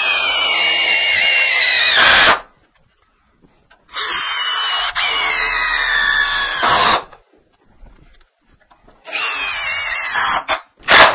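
Cordless drill driving screws: three separate runs of about two to three seconds each, the motor's whine falling in pitch during each run, with short pauses between. A sharp knock right at the end.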